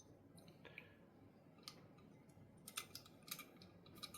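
Near silence broken by a few faint, short clicks of small steel revolver parts being handled and fitted, mostly in the second half.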